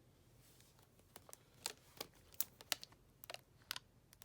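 Light clicks and taps of a small toy box being handled, about a dozen sharp ticks from about a second in.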